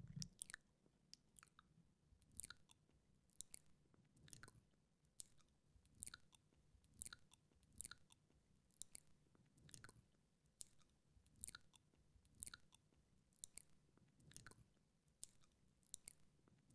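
Wet mouth sounds close to the microphone: quiet smacks and tongue clicks of a wet mouth licking, coming about once or twice a second.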